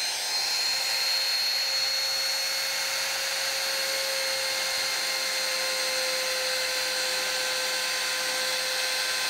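Handheld trim router with a custom roundover bit running at full speed, a steady high whine, as it rounds over the fiberglass edge of a cockpit coaming.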